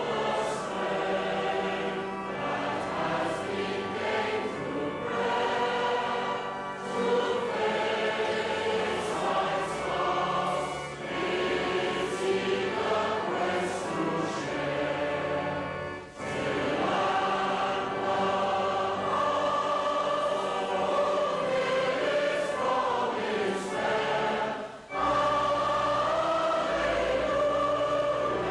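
Choir singing a hymn with organ accompaniment, with short breaths between lines about 16 and 25 seconds in.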